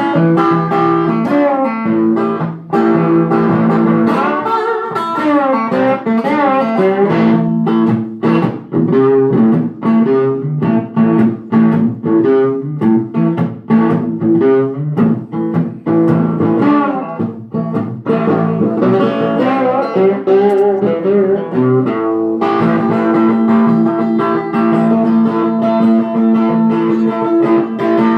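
1937 Gibson guitar played in a blues style: picked single-note lines with string bends, moving into sustained ringing chords about 22 seconds in.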